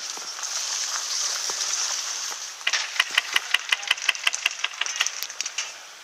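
Airsoft rifle fired in a fast run of semi-automatic shots, about six a second for nearly three seconds, starting around the middle. A steady high hiss lies underneath throughout.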